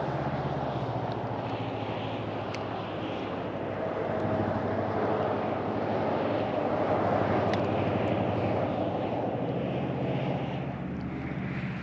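An engine drones steadily with a low hum, swelling somewhat after the middle and easing off near the end, over a background of wind and water noise.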